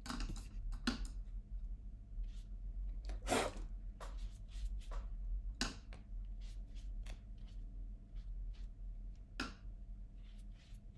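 Scattered short rustles and light taps of hands and an eraser on drawing paper as pencil lines are erased and the sheet is brushed off, over a faint steady hum.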